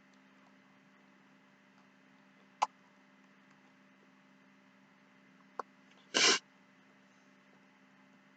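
Steady low electrical hum, broken by a sharp click, a fainter click, and about six seconds in a short loud noisy burst lasting a fraction of a second.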